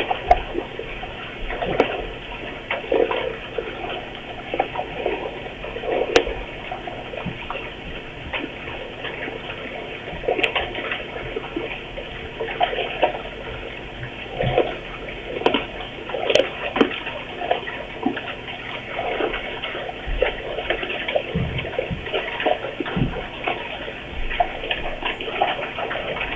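Brown bear eating, with a steady run of irregular wet smacks and crunching chews.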